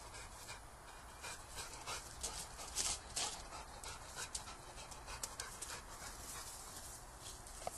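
Boxer dog panting, with short irregular scraping and splashing noises as it paws and noses at the water in a stone trough.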